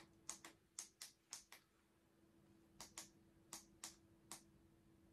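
Plastic buttons on a toy astronaut star projector pressed repeatedly, about a dozen sharp clicks in irregular groups, as someone tries to switch it off.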